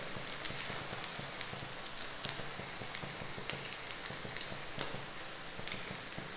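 Oil sizzling steadily around four potato tikkis shallow-frying in a nonstick frying pan, with scattered small crackles and pops.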